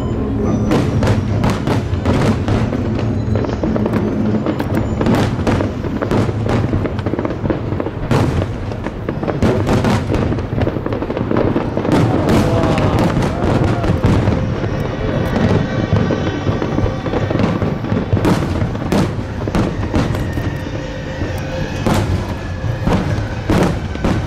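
Fireworks display: many shells bursting in quick succession, sharp bangs overlapping one another, with music playing throughout.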